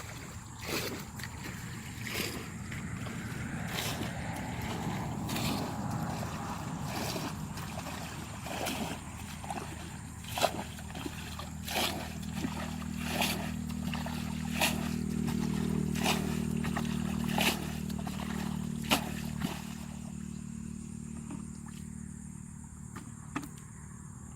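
Water sloshing and gurgling over a low steady hum, with sharp knocks repeating about every one and a half seconds that stop about four seconds before the end, followed by one last knock.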